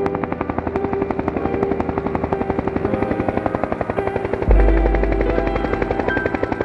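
Helicopter flying toward the listener, its rotor blades beating in a fast, steady rhythm. A deep low rumble comes in suddenly about two-thirds of the way through.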